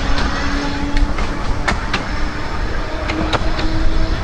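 Narrow-gauge electric tram running on its track: a steady rumble with scattered sharp clicks and knocks from the wheels on the rails, and a faint whine rising slowly in pitch.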